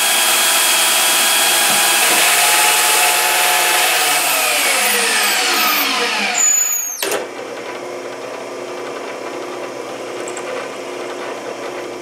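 Portable band saw running loud and steady through a metal round bar, then its motor coasting down over a couple of seconds, its pitch falling. It is followed abruptly by a quieter, steady machine running.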